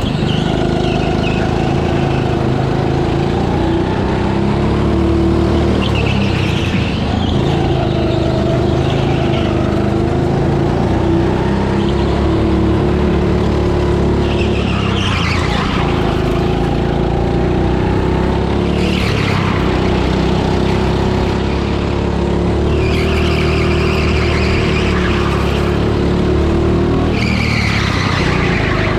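Rental go-kart driven hard around an indoor track, heard from on board: its motor runs with a steady note, and several short bursts of tyre squeal come as it goes through the corners.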